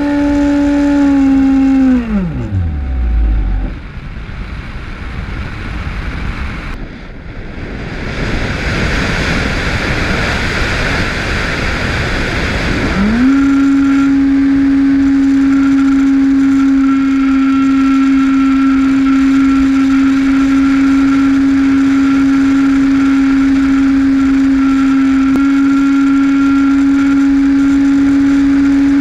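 The RC plane's electric motor and propeller run at a steady high whine, then the throttle is cut about two seconds in and the pitch falls away to nothing. During the unpowered glide only wind rushing past the plane is heard, growing louder. About 13 seconds in the motor spins back up quickly and holds a steady whine.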